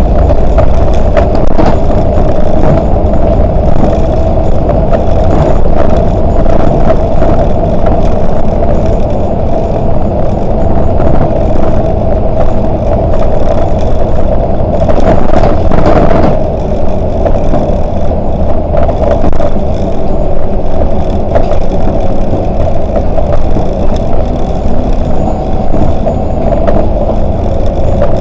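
Volvo 8900LE city bus driving, its engine and road noise running steadily under a constant whine, with loose rattles and a louder clatter about halfway through.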